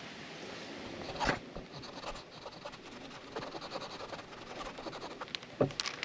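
Faint scraping, rustling and small clicks of hands handling parts and tools, with two short knocks, one about a second in and one near the end.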